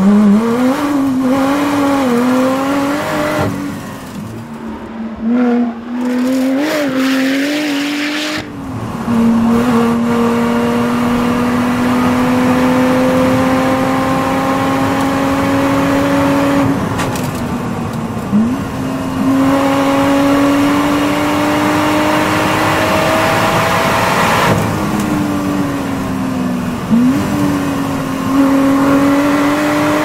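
Supercharged 3.5-litre V6 of a Lotus Exige rally car driven hard. The engine note wavers through the early corners and eases off for a few seconds, then climbs in long full-throttle pulls through the gears, dropping at each gear change. It falls away as the car slows, with two short sharp rises in pitch in the second half.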